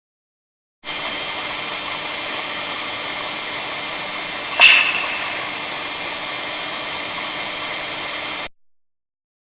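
A steady hiss of recording noise, starting and cutting off abruptly, with one sharp clap about halfway through that rings briefly; the clap is presented as a clapping sound made by the northern lights (aurora borealis).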